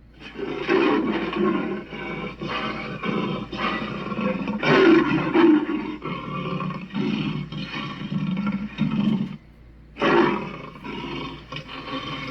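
Monster roar sound effect: a long, gravelly, pulsing roar lasting about nine seconds, then a brief pause and a second, shorter roar.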